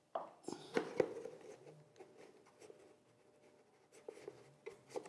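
Knocks and rubbing of hard plastic as gloved hands handle a polypropylene drainage inspection chamber base and push lubricated bungs into its unused outlets. Several sharp knocks come in the first second and a few more near the end.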